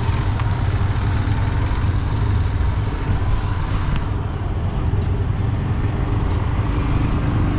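Yamaha motorcycle engine running steadily while riding at low speed, with the rumble of wind and tyres on a rough road over it.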